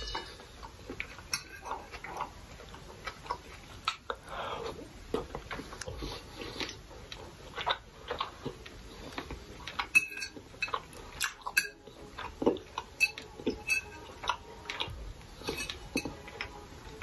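Metal fork clinking and scraping irregularly against a ceramic pasta plate as egg noodles are picked up and eaten, with chewing in between.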